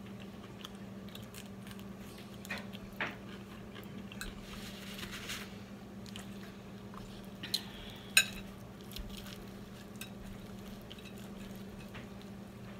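Crispy fried chicken being pulled apart by hand, the breading crackling, with scattered small clicks and a sharp click about eight seconds in. A steady low hum runs underneath.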